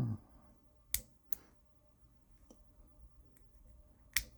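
A few sharp, separate metallic clicks from a lock pick and tension wrench working the pin tumblers of a Brinks padlock, with quiet between them.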